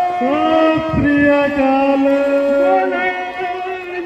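Several voices singing or chanting together, holding long drawn-out notes.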